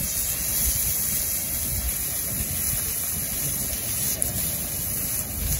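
Wood fire burning under a cast-iron skillet of beef steaks, with the meat sizzling: a steady hiss over a low rumble, and one sharp pop about four seconds in.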